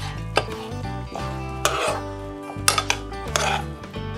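A spatula scraping and knocking in a frying pan as fried chicken pieces are tossed through thick yangnyeom sauce, with several sharp knocks among the scraping. Background music with held notes plays underneath.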